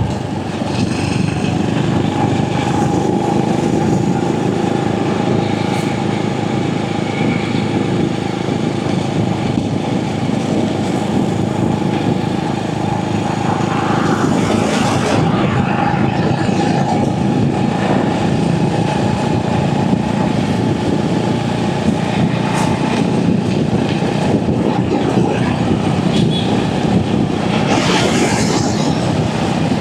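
Royal Enfield Hunter 350's single-cylinder engine running steadily on the move, mixed with wind and road noise. There is a brief louder rush of hiss about halfway through and another near the end.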